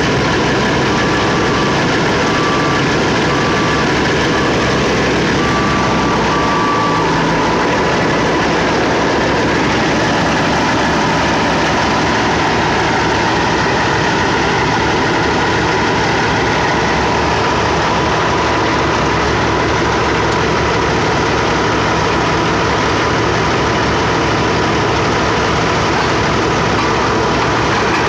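Heavy machinery engines running steadily: a skid-steer loader working near a parked semi-truck. In the first several seconds a reversing alarm beeps about six times.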